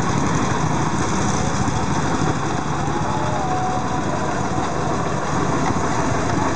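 Small engine of a vintage platform truck running steadily as it drives slowly past, with a rapid even low chugging.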